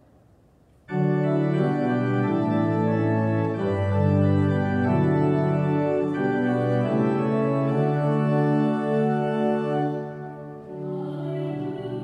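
Church organ comes in suddenly about a second in and plays held chords, the music that accompanies the congregation standing for the Gospel Acclamation. It drops in volume near the end.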